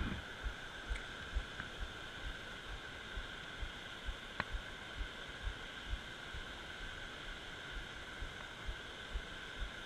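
Steady rush of water pouring over a low dam across the creek, with soft low thumps repeating about twice a second and a single sharp click about four and a half seconds in.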